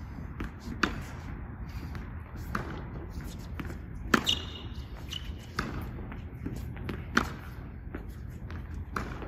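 Tennis rally: sharp pops of the ball struck by a racket strung with thick monofilament fishing line, about every three seconds, with softer pops of the ball bouncing or being returned between them. A short high ring follows the loudest hit about four seconds in.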